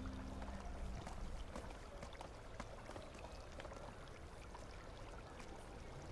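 Faint trickling and bubbling of water from the shop's aquarium tanks, with small scattered ticks through it. A tail of background music dies away in the first second.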